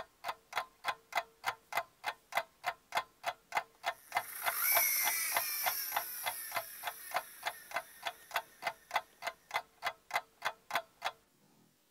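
Clock ticking steadily, about three ticks a second, stopping shortly before the end. About four seconds in, a whoosh with a high falling whine swells up and fades away over some four seconds.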